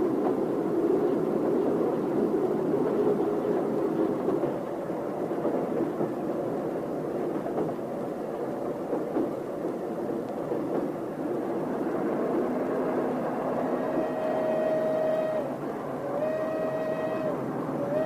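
Train running on the rails, a steady rumbling noise. In the last few seconds three long held notes at one pitch sound over it.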